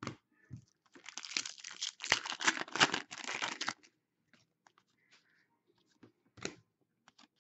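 A foil trading-card pack wrapper being torn open and crinkling for about three seconds, starting about a second in. A few light clicks follow as the cards are handled, one louder near the end.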